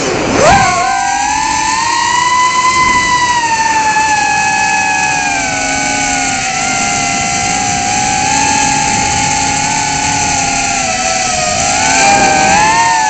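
Emax Tinyhawk 2 micro drone's brushless motors whining, heard from a camera mounted on the drone itself. The pitch dips sharply and swoops back up about half a second in as the throttle is cut and punched, then settles into a steady high whine that drifts slowly lower and rises a little near the end.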